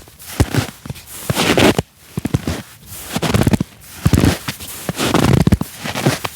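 Footsteps crunching and creaking in snow, about one step a second.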